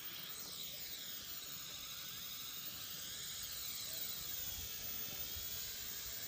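X5C-1 toy quadcopter's four small electric motors and propellers whining as it lifts off and hovers, the pitch sliding down and up as the throttle changes.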